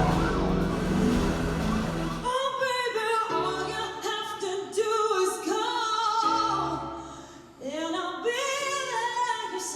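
Demo material played back through a surround system. A dense, noisy passage gives way about two seconds in to a solo singer over sparse low bass notes.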